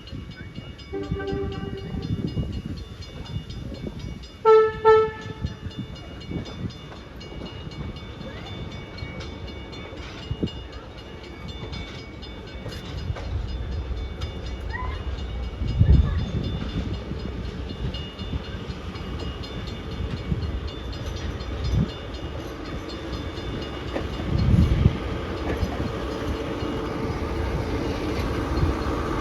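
Horn of Southern Railway EMD FP7 diesel locomotive No. 6133 sounding a short note, then two short loud blasts as the passenger train pulls in. Then the steady rumble of the locomotive and cars rolling slowly past, with a few low thumps.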